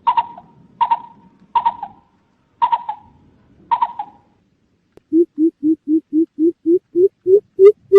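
Greater coucal calling: five short, sharp notes in the first four seconds. About five seconds in, a steady run of deep hoots starts at roughly four a second, creeping up in pitch and growing louder.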